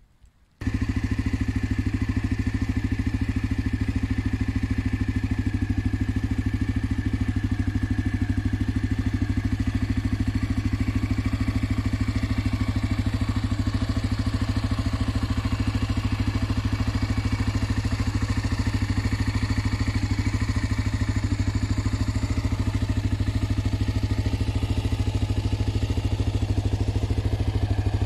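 Honda NX250 Dominator's single-cylinder engine idling steadily, at an even pace, starting suddenly about half a second in.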